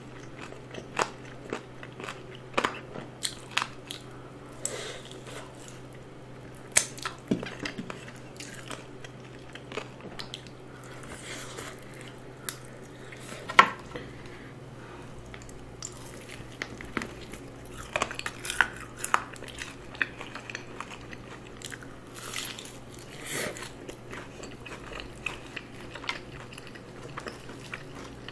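Close-miked crunching and chewing of crispy seasoned fried chicken drumsticks, with many sharp crunches scattered irregularly, the loudest about halfway through. A steady low hum runs underneath.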